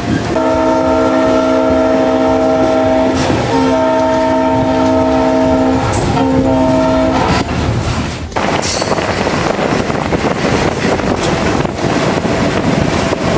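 Passenger train's locomotive air horn sounding a chord in three blasts, two long and one short, over the steady rolling noise of the train on the rails, which carries on alone after the horn stops.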